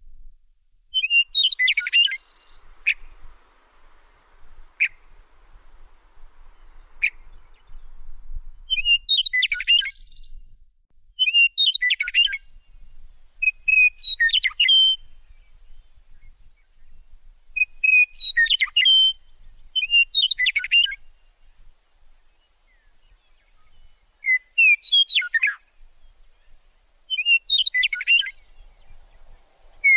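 A songbird singing short, quick phrases again and again, about eight of them spaced two to four seconds apart, with a few single sharp notes between the first ones.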